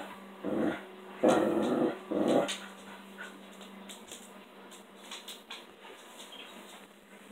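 Dog grunting as it scratches its back against a chair: three grunts in the first two and a half seconds, the middle one the longest and loudest. After that only faint scattered clicks.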